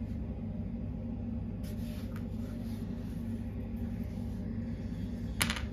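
Light clicks of small plywood hinge pieces being handled and set down on a work surface, with one sharper wooden tap near the end, over a steady low hum.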